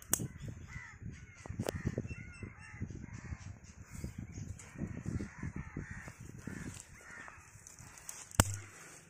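Crows cawing repeatedly, over close rustling and crackling as dry twigs are handled and laid onto a small fire. One sharp crack sounds near the end.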